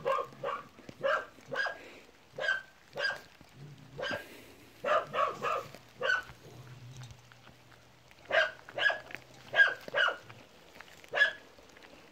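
A dog barking repeatedly: short barks in runs of two or three, with a pause of about two seconds in the middle.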